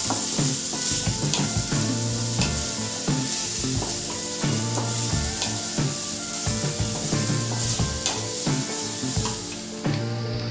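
Chopped onion with ginger and garlic sizzling in hot oil in a kadai while a wooden spatula stirs it, with a few light taps of the spatula against the pan.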